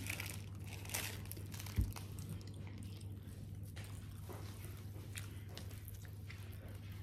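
Close chewing and biting of fast food, with light crinkling of a paper burger wrapper in the first second or so and a soft thump just under two seconds in. A steady low electrical hum runs underneath.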